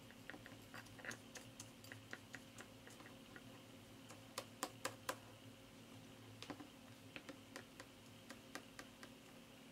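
Faint, scattered light taps and clicks of a brush and small paper pieces on a tabletop as Mod Podge is dabbed onto little paper hearts, over a low steady hum. A few sharper clicks come close together about four and a half to five seconds in.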